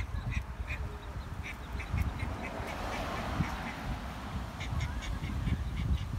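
Ducklings peeping in quick runs of short, high calls, about four or five a second, in two bursts, over a steady low rumble.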